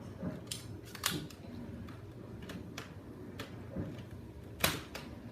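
Sharp plastic clicks and snaps from handling a Nerf toy's parts, about six separate clicks with the loudest near the end.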